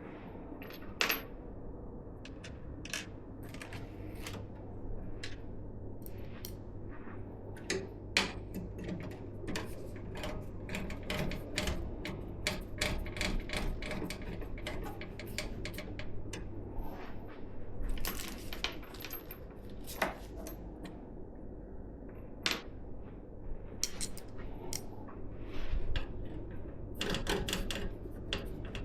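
Scattered clicks, taps and light rattles of PC parts and case hardware being handled, over a low steady hum.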